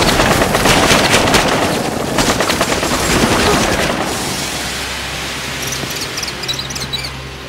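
Rapid machine-gun fire over a dense din of battle in a war film's soundtrack. It dies away after about four seconds, and steady low music tones come in near the end.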